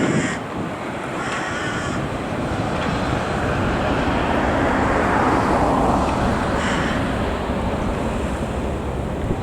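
A crow cawing a few times, short harsh calls near the start, about a second and a half in and again near the end, over a steady mechanical rumble that swells to a peak about halfway through and then eases off.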